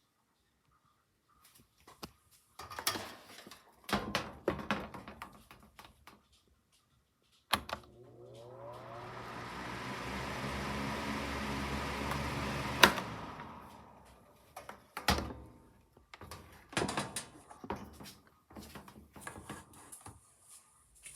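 Clicks and knocks of handling, then a switch click and the 2002 SMC TR12 12-inch table fan's motor starting up, its hum rising in pitch as the blades come up to speed and the rush of air builds for about five seconds. A sharp switch click then cuts it, and the fan winds down over about two seconds. More knocks of handling follow.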